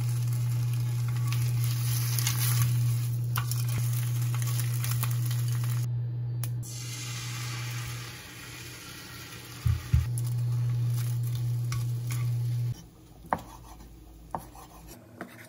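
Egg frying in a small square nonstick omelette pan: a steady sizzle with a spatula and chopsticks scraping and pushing the egg, over a steady low hum. The frying stops about thirteen seconds in, and a few knife taps on a wooden cutting board follow near the end.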